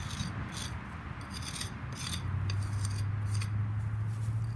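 A round brick jointer scraping along partly set type S mortar in the vertical joints of a brick wall, in a run of short rasping strokes as the joints are pressed in and smoothed. A low steady drone comes in about halfway.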